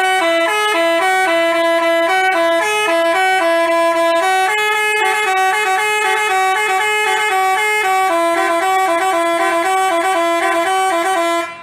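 Basuri telolet bus horn playing a quick melody, its horn tones stepping from note to note in a bright tune, cutting off near the end.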